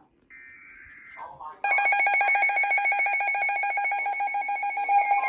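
Emergency Alert System broadcast: a short burst of the screeching digital data tones of the SAME alert header, then, about a second and a half in, the loud steady EAS attention tone starts and holds.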